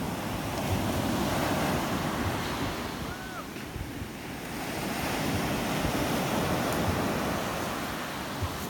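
Surf breaking and washing up a sandy beach, swelling twice as waves roll in and ebbing between them, with wind buffeting the microphone.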